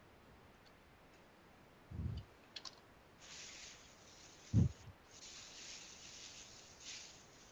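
Computer keyboard clicks and a couple of dull low thumps on a desk-side microphone, with two long stretches of soft hiss in the middle.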